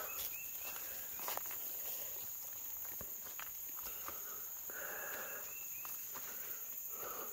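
Footsteps scuffing and crunching through dry leaf litter and brush while climbing a steep wooded slope, over a steady high insect buzz.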